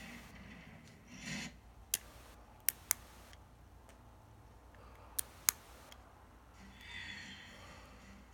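Lock pick and tension wrench working the pin tumblers of a deadbolt with security pins: faint metal scraping with a few sharp small clicks, one about two seconds in and then two quick pairs, as pins are raised and set.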